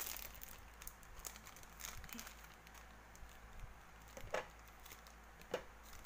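Plastic wrappers of Cream-O cookie packets crinkling faintly as they are handled and opened, with small scattered clicks and two sharper ticks, about four and five and a half seconds in.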